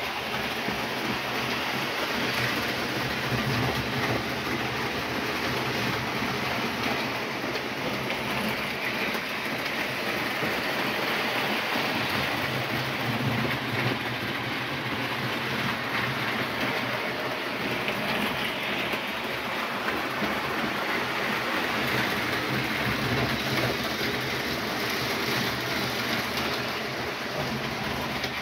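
Electric model train running steadily on three-rail track: a steady motor hum with the sound of wheels rolling over the rails.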